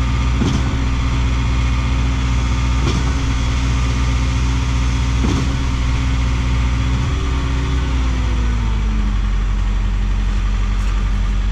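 Schwing trailer concrete pump running under load alongside a concrete mixer truck, with a knock about every two and a half seconds as the pump changes stroke while priming the line. Near the end the engine slows, its pitch falling as the line is primed out.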